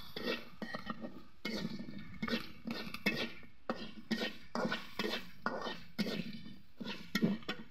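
Metal spatula scraping and clinking against a karai while stirring onions, jackfruit seeds and spices in oil, in repeated strokes about two to three a second.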